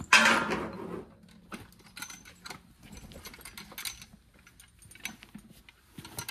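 Light metallic clinking and jingling of draft-horse harness hardware as gear is handled, with a short, loud rustling rush about a second long at the start.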